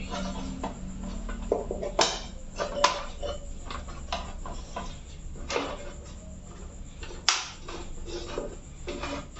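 Hands pressing insulated wires into a plastic MCB distribution box: light rubbing and handling noise with a few sharp plastic clicks and taps, the loudest one about seven seconds in.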